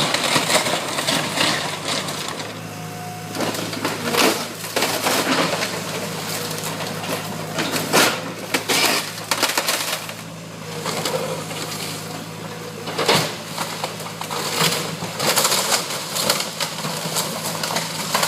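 Demolition excavator's diesel engine running steadily while the machine crushes and tears apart a wood-framed house, with repeated crunching, splintering and cracking of timber and debris, loudest about 4, 8, 9, 13 and 15 seconds in.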